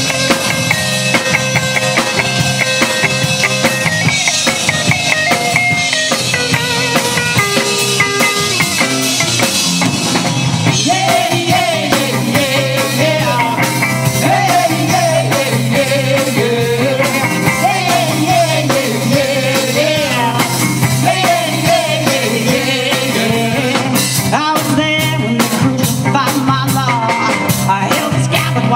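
Live rock band playing: drums, bass and electric guitars, with a guitar melody line at first. A woman's lead vocal comes in about eleven seconds in and carries on over the band.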